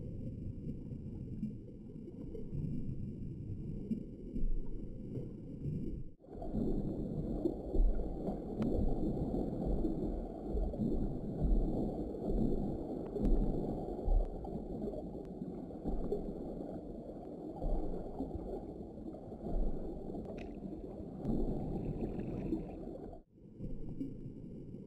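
Underwater water noise picked up by a submerged camera: a low, uneven rumble and wash with faint steady high tones above it. The sound changes abruptly about six seconds in and again near the end, where the underwater shots change.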